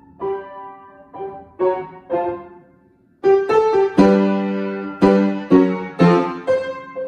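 Piano played by a child: separate notes and short phrases, a brief pause about three seconds in, then louder chords struck about twice a second, each ringing and fading.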